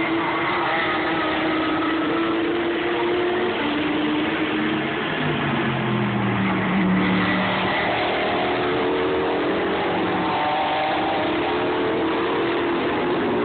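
Race car engines passing on a circuit, several cars one after another. Their engine notes fall in pitch as they go by and rise again as they accelerate away.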